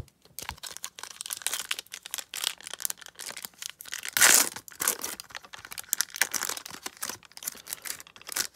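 Foil wrapper of a 1991-92 Upper Deck basketball card pack crinkling as it is handled and torn open, with a louder rip about four seconds in.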